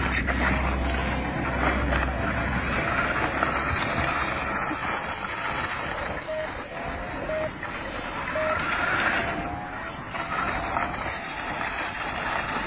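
Three short beeps about a second apart in the middle, over steady outdoor background noise.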